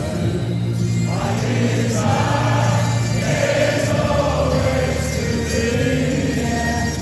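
Music with many voices singing together like a choir, held notes over a steady low accompaniment.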